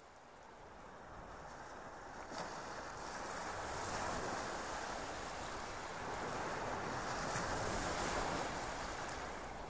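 Ocean waves washing on a shore: a steady rushing surf that fades in over the first few seconds, then swells and eases.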